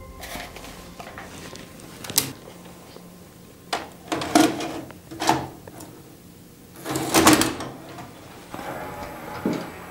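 VHS cassette being pushed through the front flap into a Sony SLV-750HF VCR and drawn in by its loading mechanism: a string of separate plastic clicks and clunks, the loudest about four and seven seconds in.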